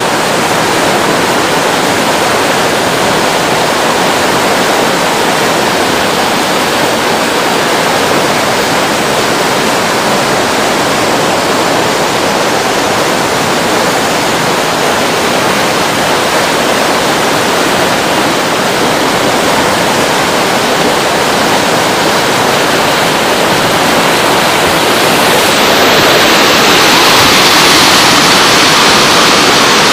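Whitewater rapids of a slalom course rushing steadily and loudly, growing louder and hissier near the end as the churning water comes close.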